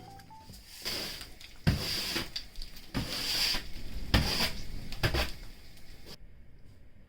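Wind gusting against the microphone in about five sudden rushes of noise, each dying away within a second, until the sound cuts off abruptly near the end.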